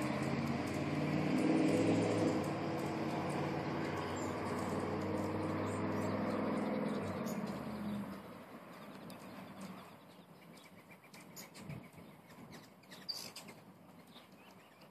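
A low steady hum of several tones fades out a little over halfway through. Hummingbirds at the feeders give thin high chirps and ticks throughout, with one sharper chirp near the end.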